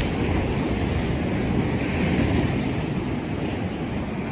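Ocean surf washing on a rocky shore, with wind buffeting the microphone.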